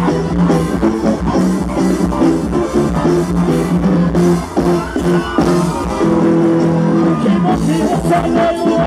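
Live gospel band playing through a PA: a steady drum beat under sustained keyboard and electric guitar chords.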